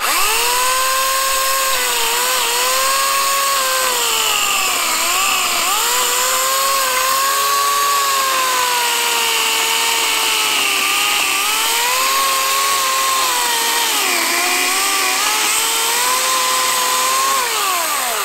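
Homelite 14-inch electric chainsaw cutting through a thick log. Its motor whine sags in pitch several times as the chain loads up in the cut and comes back up each time, over the rasp of the chain in the wood. Near the end it winds down in pitch and stops.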